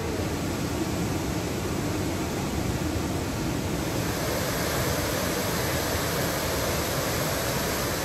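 Large waterfall in full flood, its water rushing with a steady noise like ocean surf. About halfway through the sound turns brighter and hissier.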